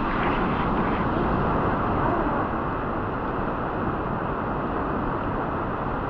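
Steady rushing of a fast-flowing creek and waterfall, an even wash of water noise without breaks.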